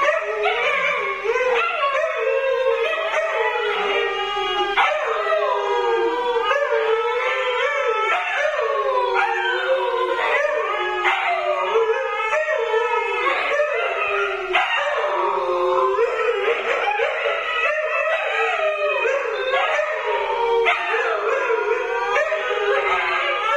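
Several Siberian huskies howling together, their overlapping voices gliding up and down in pitch without a break.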